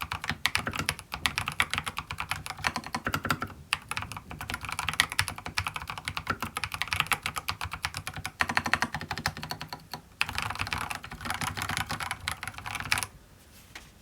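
Fast typing on an Mstone mechanical keyboard with MMD tactile switches and tall, thick MT3-profile PBT keycaps: several runs of rapid keystrokes with brief breaks, stopping about a second before the end.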